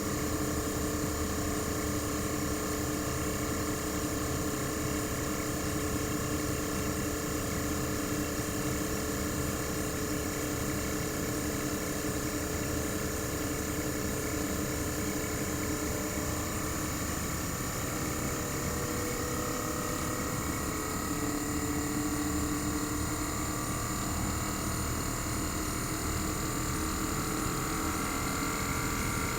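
Panasonic CU-227CF outdoor unit's inverter-driven single rotary compressor running without its sound-deadening cover: a steady hum with several whining tones. A few of the tones climb slightly in pitch in the second half.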